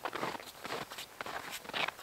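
Footsteps crunching in snow at a steady walking pace, growing fainter as the walker moves away.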